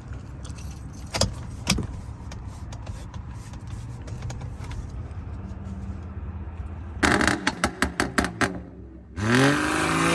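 BMW F10's N55 turbocharged straight-six being started: a rapid clatter of cranking for about a second and a half, then the engine catches near the end and revs up, its pitch rising.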